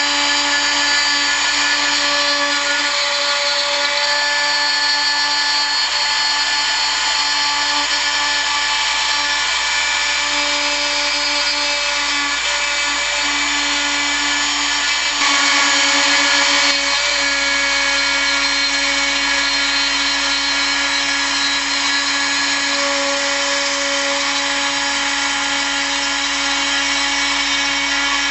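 Hobby CNC router spindle running steadily while milling, a steady whine over a hiss of cutting noise; about 15 seconds in it briefly gets louder for a second or two.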